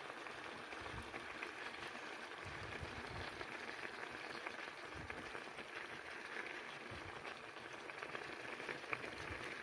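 Pan of peas, carrots and turkey meat simmering with a faint, steady bubbling, with soft knocks as a wooden spoon stirs through the vegetables.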